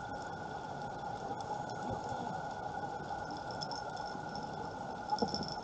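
Underwater ambience picked up through a camera housing on a reef: a steady hum and hiss with scattered faint clicks. A brief louder burst comes about five seconds in.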